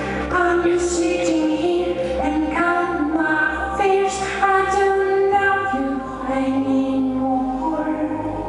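Live music: a woman singing long, held notes that slide between pitches over a low sustained bass note, which shifts to a new pitch about five seconds in.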